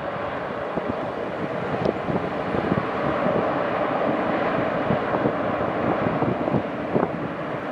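Jet airliner's engines as a steady rush of noise, swelling slightly about three seconds in, with wind buffeting the microphone.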